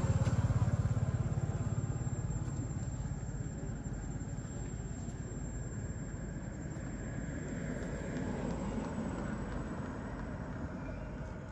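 A low, steady engine-like rumble, loudest in the first two seconds and then easing off a little.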